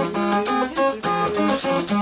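Polivoks analog synthesizer playing a quick run of short, bright, buzzy notes, about five a second.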